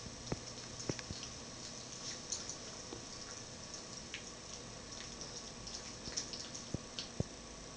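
Scattered soft wet clicks and smacks from a boxer puppy mouthing at an adult dog's neck.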